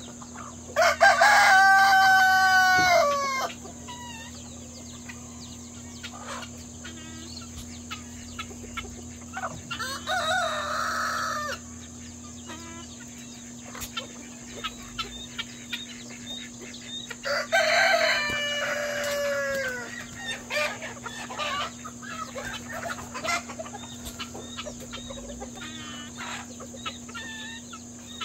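Roosters crowing twice, two long calls that drop in pitch at the end, about a second in and again past halfway, with a rougher call between them, over the steady short clucking of a foraging flock of chickens.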